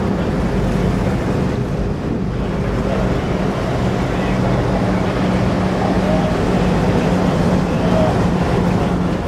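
A boat's engine running at a steady, unchanging pitch as the boat motors along, over the rush of wind and water.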